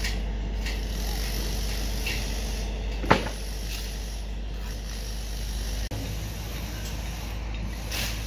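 Steady low rumble of outdoor site noise, with one sharp knock about three seconds in.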